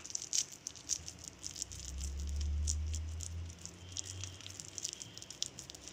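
Wet squelching and patting of hands rolling spiced chicken mince into kofta balls: many quick, small sticky clicks. A low rumble swells up about a second in and fades away after a few seconds.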